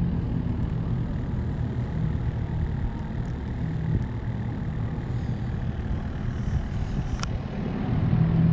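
Steady low engine hum, with a light click about seven seconds in.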